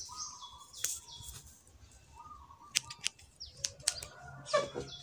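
Haircutting scissors snipping a few times, short sharp cuts, as hair is trimmed. Small birds chirp in the background.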